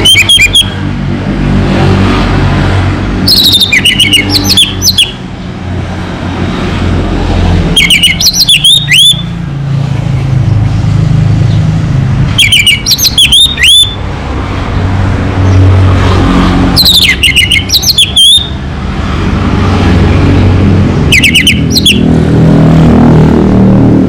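Orange-headed thrush singing: six short phrases of high, quickly varied whistled notes, each about a second long and coming roughly every four seconds, over a steady low rumble of road traffic.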